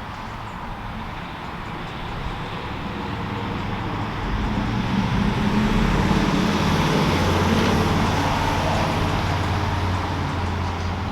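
A motor vehicle going past on a road: a broad road noise with a low engine hum that swells over a few seconds, peaks midway, then slowly fades.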